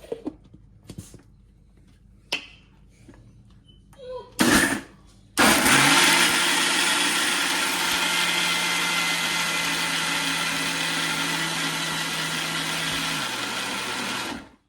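Preethi stainless-steel mixer grinder wet-grinding soaked lentils with water. After a few knocks as the jar is seated and a brief pulse, the motor runs steadily for about nine seconds, its hum dropping slightly just before it cuts off near the end.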